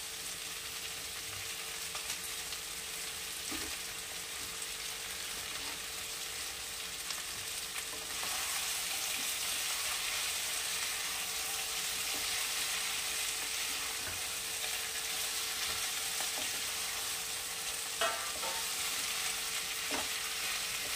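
Mixed vegetables, cauliflower, potatoes and beans, sizzling in oil in a kadai while being stirred with a wooden spatula. The sizzle grows louder about eight seconds in, and the spatula knocks against the pan twice near the end.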